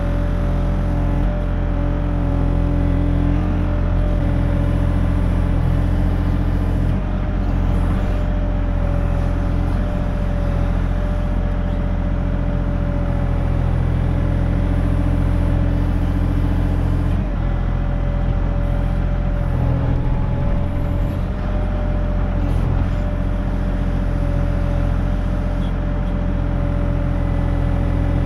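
Compact excavator's diesel engine running steadily at working speed while the arm and bucket dig, with a steady whine over the engine sound.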